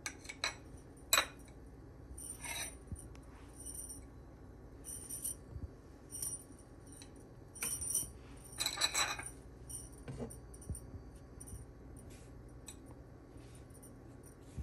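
Scattered light clicks and short clinks of kitchen handling while pats of butter are set on pancakes in a non-stick frying pan. There is a sharp click about a second in, and a run of clinks a little past the middle.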